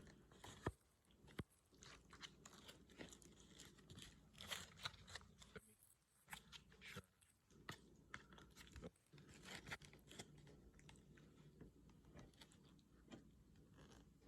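Faint, close-up chewing and wet mouth sounds of a person eating fettuccine alfredo, with many small clicks and smacks that thin out near the end.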